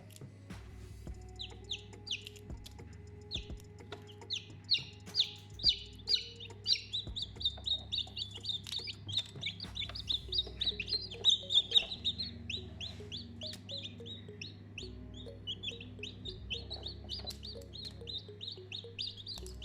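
Baby chicks peeping: many short, high calls in quick, overlapping succession, loudest in the middle.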